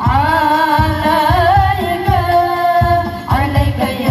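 Music with an ornamented singing voice over a steady bass beat, played loud through a large outdoor sound system's speaker stack.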